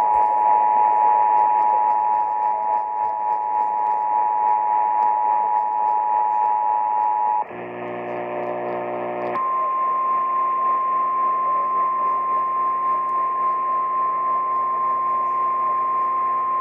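Emergency Alert System two-tone attention signal heard over AM radio static: two steady tones sounding together, cutting off about seven seconds in. A low buzz follows for about two seconds, then a single steady higher tone starts and holds, the NOAA Weather Radio warning alarm tone.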